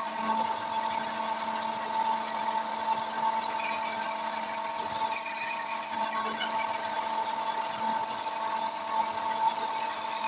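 Wood lathe running with a steady whine, while a turning tool scrapes irregularly against the spinning wood.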